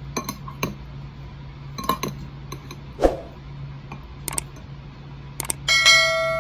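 Serving utensil knocking and clinking against dishes while curry is served onto a plate of rice: several light clicks and a dull knock, then near the end a louder clink that rings on with a clear tone and fades.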